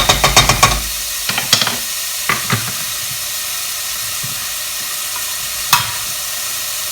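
Chopped onion, pepper and mushrooms sizzling steadily in a frying pan. In the first second a utensil stirs them with a quick run of knocks against the pan, then taps it a few more times.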